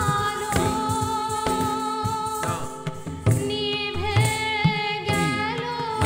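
Indian classical-style music: a melody of held notes that bend and glide, over tabla strokes with deep bass thuds.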